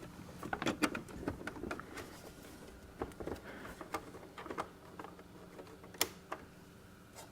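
Scattered clicks and knocks of the power cable and connectors being plugged back into a Zebra GX420t thermal transfer label printer, over a faint steady hum. The sharpest knock comes about six seconds in.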